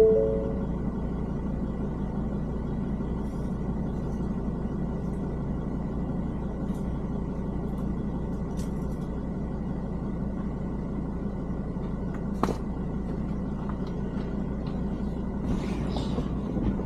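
Ford Ranger driving along a rough bush track, its engine and tyres making a steady low drone, with an occasional faint knock or rattle. A short, loud pitched note sounds right at the start.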